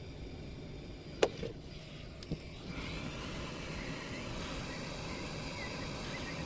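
Small hand-work on the amplifier's pointer-lamp fitting: a sharp click about a second in, a lighter click a second later, then faint steady scratchy rubbing over a low background rumble.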